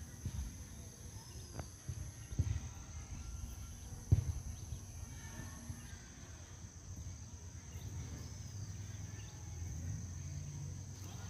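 Outdoor ambience at a grass football pitch during play: a fluctuating low rumble on the microphone with a steady thin high drone of insects, broken by a few dull thumps in the first four seconds.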